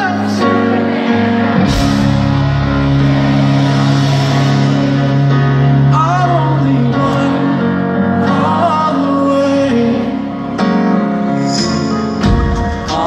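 Live pop ballad played by a band: piano with bass and drums underneath and a sung vocal line over it, heard from the audience with a large open-air PA sound.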